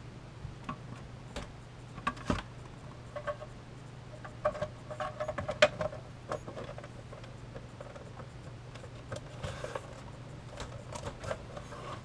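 Plastic case of an old Panasonic flip-display alarm clock being handled and pressed together, giving scattered light clicks and knocks over a faint steady low hum. One spot of the case will not seat, so the parts are being pushed and shifted.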